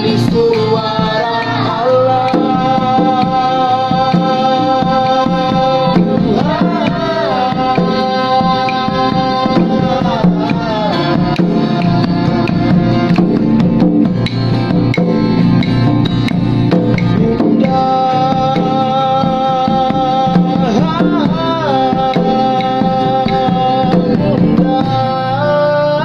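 Acoustic band playing an instrumental passage with no sung words: acoustic guitars and a hand drum beat under a held melody line that slides between notes.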